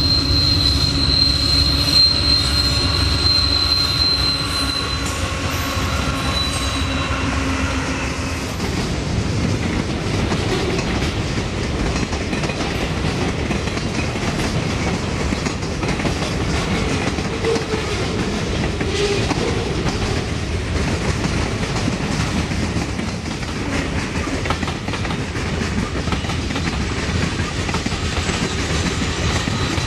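A freight train's lead GE C40-8W diesel locomotives pass close by, with a pitched engine drone and a high steady whine that fade out within the first eight seconds. After that the freight cars roll past in a steady rumble and clatter of steel wheels on the rails.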